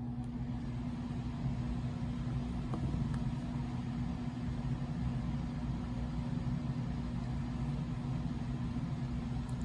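A steady low mechanical hum with one constant tone, running evenly throughout.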